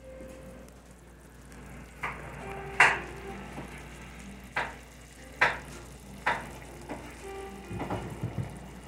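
Knife mincing red onion on a cutting board: about six sharp knocks a second or so apart, then quicker, lighter taps near the end. Under them, beef cubes simmer and sizzle gently in their juices in the pan.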